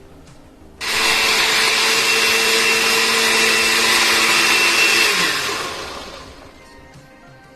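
Countertop blender puréeing boiled peas for soup. It switches on about a second in, runs steadily for about four seconds, then switches off, and its motor pitch falls as it spins down.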